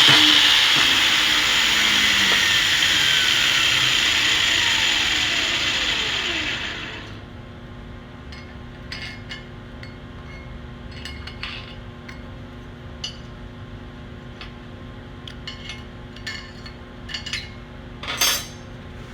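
Shielded metal arc (stick) welding with a 7018 electrode: the arc crackles and hisses steadily, then breaks off about seven seconds in as the bead is finished. After that come scattered light clicks and clinks, the loudest near the end.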